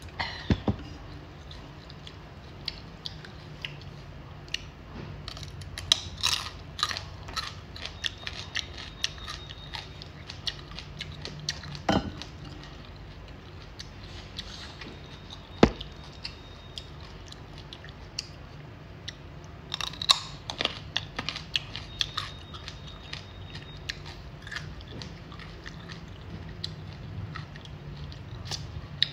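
Close-up chewing of raw carrot: crisp crunches and wet mouth clicks in scattered clusters. Two sharp knocks stand out near the middle.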